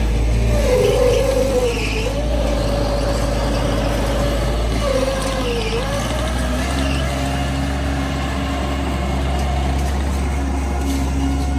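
Bobcat MT85 stand-on mini track loader's diesel engine and hydraulics running steadily as the machine is driven, with a low hum and a whining tone that dips in pitch twice.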